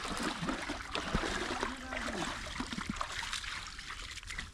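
Pond water splashing and trickling as a fishing net is worked through it, a continuous watery rush with small splashes.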